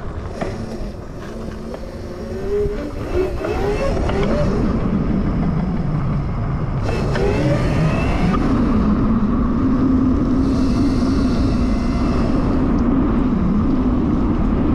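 Razor RSF650 electric motorbike, converted to a high-power Electro & Co kit on a 72 V battery, accelerating: the motor's whine rises in pitch twice as the bike picks up speed. It then holds a steady pitch at about 20 mph over road and wind rush.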